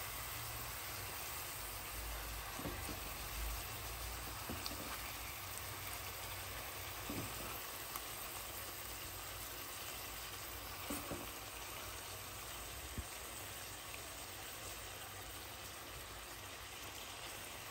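Faint, steady sizzle of oil and tamarind water in a pot of stuffed baby eggplants cooking on low flame, with a few faint clicks.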